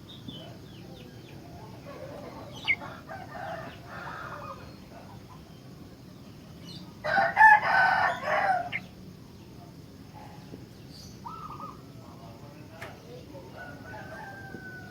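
Sooty-headed bulbul (kutilang) giving short chirping call phrases. A rooster crows loudly for about two seconds midway.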